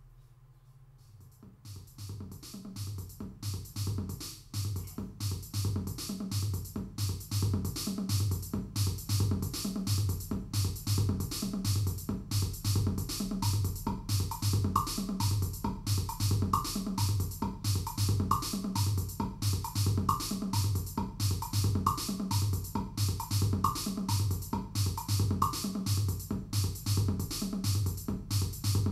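Electronic jam music: a drum machine beat with a steady kick drum and fast hi-hats, over synthesizer. It comes in after about a second and a half of near silence and builds up over the next few seconds.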